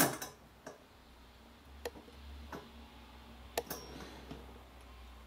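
Camera handling noise while zooming in: a sharp click at the start, then a few faint, irregular clicks over a low steady hum.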